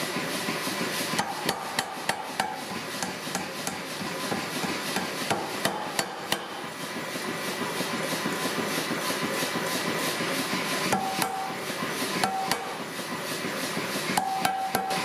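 Power hammer striking red-hot forklift-tine steel held in tongs between its dies: rapid, repeated blows over the noise of the running machine.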